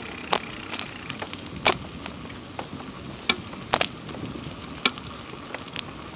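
Bicycle rolling along a cracked concrete sidewalk: a steady rolling noise with five or six sharp, irregular clicks and knocks as the bike and the phone clipped to it jolt over the slab joints.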